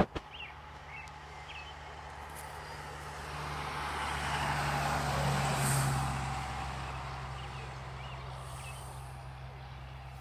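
A motor vehicle's engine drones steadily as it passes, growing louder to a peak around the middle and then fading away.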